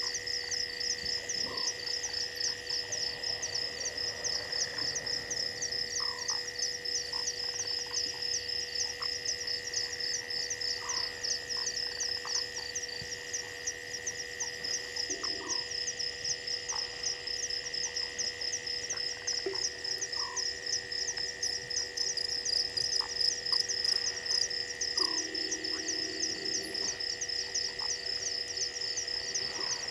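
Night chorus of frogs and insects at a waterhole: a fast, high-pitched pulsing trill and a steady high drone, with short lower calls every second or two.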